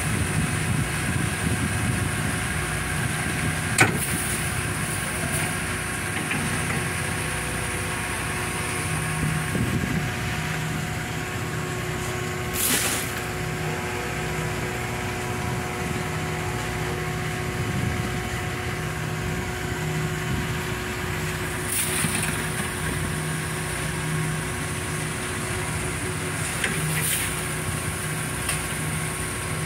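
Steady engine or machinery hum holding an even pitch, with a single sharp knock about four seconds in and a few short hissing rushes later on.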